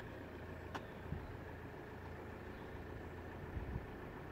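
Low steady rumble of road traffic and engines idling near the closed crossing, with a single faint click under a second in and a few soft thumps near the end.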